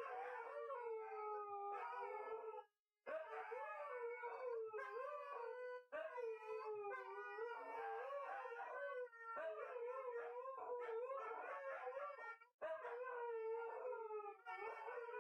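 Two Siberian huskies howling together, their long, wavering howls overlapping and gliding up and down in pitch, broken by short pauses every few seconds.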